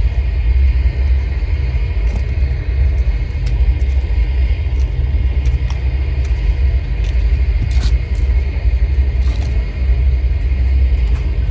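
Propane roofing torch burning steadily, a continuous low rumble with a few faint clicks.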